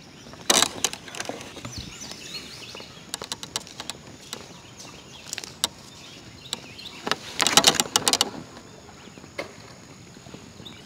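Footsteps crunching over sand and dry twigs, in irregular clusters of short clicks, the loudest cluster about seven seconds in, over a faint steady outdoor background.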